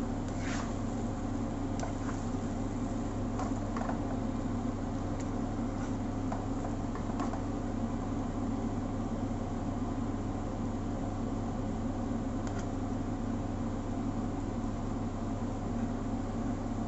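A spatula scraping and tapping against a wok a few times in the first few seconds of stir-frying, then once more later, over a steady low mechanical hum.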